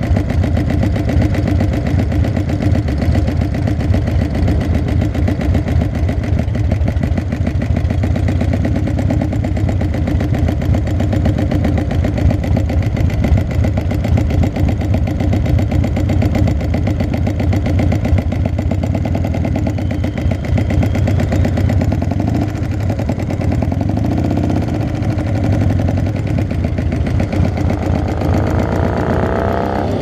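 Motorcycle engine idling steadily close by. Near the end another motorcycle's engine note rises as it accelerates.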